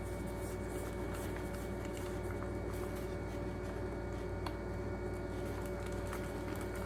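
Steady background hum with a few faint small clicks of a screwdriver tightening a screw into a small plastic aquarium air pump housing.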